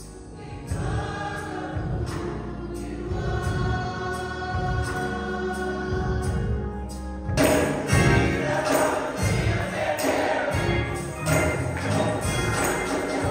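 Gospel music with a choir singing. It turns fuller and louder a little past the halfway point.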